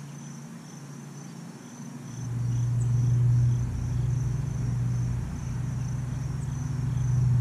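Crickets chirring steadily in the background. About two seconds in, a low steady hum comes in and becomes the loudest sound, with a slight rise and fall in level.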